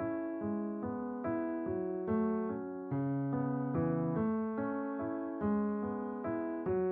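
Slow, gentle piano-toned keyboard music: a steady run of notes a little over two a second, each one fading as the next is struck.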